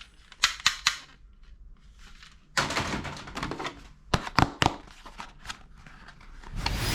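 Toy guns being handled and fired: sharp plastic clicks and snaps in small groups, about three just under a second in, a cluster around three seconds, and three quick ones a little past four seconds.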